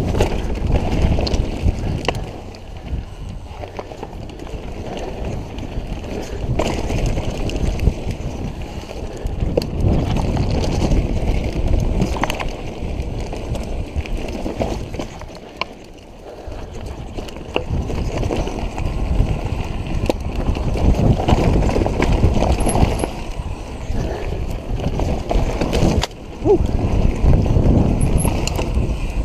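Mountain bike riding over rocky dirt singletrack: a rumble of tyres on loose rock and dirt, with sharp knocks and rattles from the bike as it hits rocks. Wind buffets the microphone, and the whole sound rises and falls in surges with the terrain and speed.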